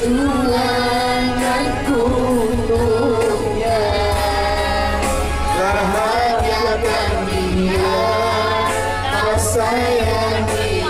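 A man and a woman singing into a microphone over a karaoke backing track with a heavy bass line.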